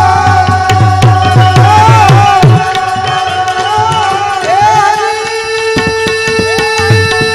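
Tabla and harmonium playing a devotional bhajan accompaniment. The harmonium holds long steady notes while the tabla keeps a running rhythm, its bass drum sliding down in pitch on many strokes.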